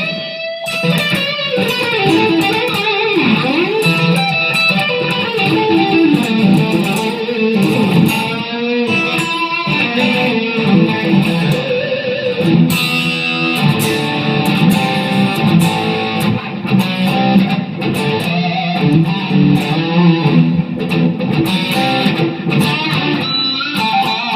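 2010 Epiphone Les Paul Standard electric guitar played through an amp with distortion, in the middle pickup position with the Burstbucker 3 and Gibson 57 Classic humbuckers together. It plays a continuous run of notes and chords with some string bends about three to four seconds in.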